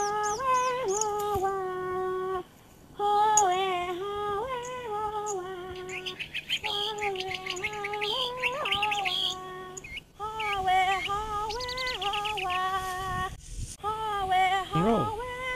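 A woman singing a Naga folk tune without accompaniment, in phrases of long held notes with short pauses between them. Birds chirp rapidly in the gaps, in two bursts in the middle.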